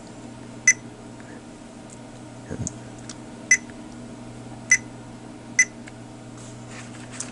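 Digital multimeter keypad beeping four times, short high single-tone beeps, as the buttons on a Fluke 87 V are pressed to step through and reset its min-max peak readings. A steady low hum runs underneath.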